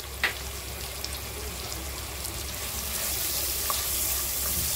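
Sliced onions and green chillies frying in hot oil in a nonstick pan, a steady sizzle that grows louder near the end as a silicone spatula stirs them. A short tap about a quarter second in.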